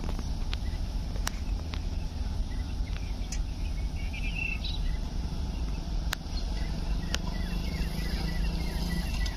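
Open-air ambience: a steady low rumble, with a few short bird chirps around the middle and faint insect chirring in the second half. A handful of faint ticks are scattered through it.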